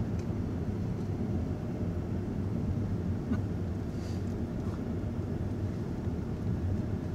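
Steady low drone of a following vehicle's engine and road noise, keeping pace at low speed behind cyclists.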